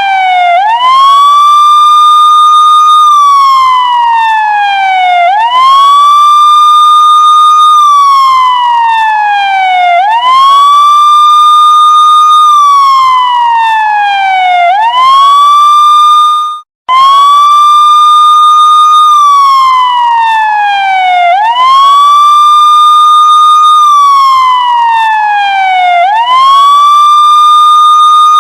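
Police siren wailing. Each cycle rises quickly, holds high for about two seconds, then falls slowly, repeating roughly every five seconds. Partway through, the sound cuts out for an instant and picks up again at the held high pitch.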